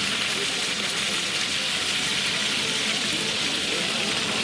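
Meat fillets frying in oil on a large flat-top griddle: a steady, even sizzle.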